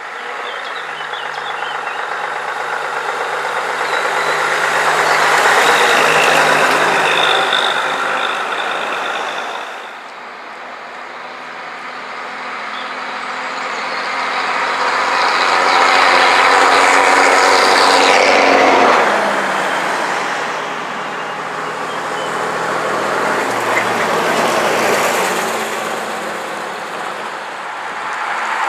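Vintage buses' engines driving past one after another. Each engine grows louder as the bus approaches and passes, loudest about six seconds in and again around seventeen seconds, and the second bus's engine note drops as it goes by.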